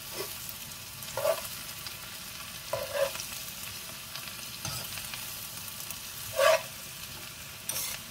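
Cabbage sizzling in a frying pan while it is stirred with metal tongs, which clink against the pan several times; the loudest clink comes about six and a half seconds in.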